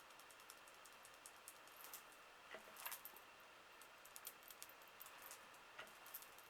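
Near silence: room tone with faint, irregular small clicks and taps, a few slightly louder ones about two and a half to three seconds in and again near six seconds.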